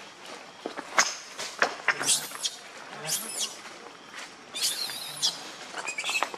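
Infant pig-tailed macaque screaming: three short, high-pitched arching cries, the last the longest. A few sharp clicks come just before the first cry.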